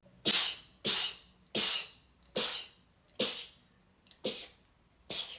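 A person sneezing seven times in rapid succession, roughly one sneeze every 0.8 seconds, the later sneezes fainter than the first.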